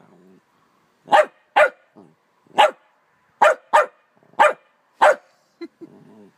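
A dog barking in seven short, sharp barks at uneven gaps, at a bumblebee that it wants to snap at but is wary of being stung by.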